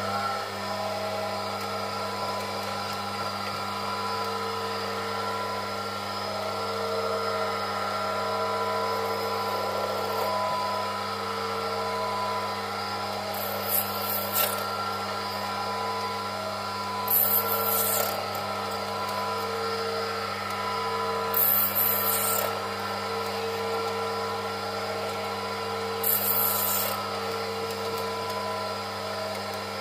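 Small benchtop metal lathe running with a steady motor and gear hum while a cutting tool is fed into the spinning metal workpiece. From about halfway through, a short scraping hiss of the cut comes roughly every four seconds, each about a second long.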